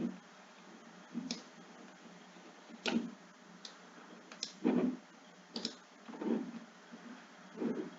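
Computer mouse clicking, about eight separate clicks at uneven intervals over a faint steady hiss.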